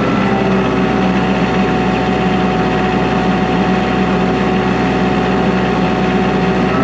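Kubota L3940 tractor's diesel engine running at a steady speed.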